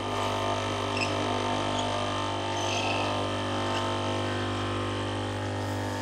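Hotpoint for Illy Iperespresso capsule coffee machine brewing a lungo: its pump runs with a steady buzzing hum as coffee pours into the cup.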